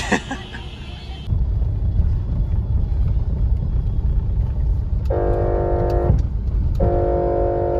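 Low rumble of a car driving, heard from inside its cabin, with two flat car-horn blasts of about a second each, a little after halfway and near the end.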